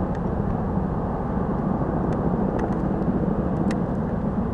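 A steady low rumble, with a few faint clicks about two and three and a half seconds in.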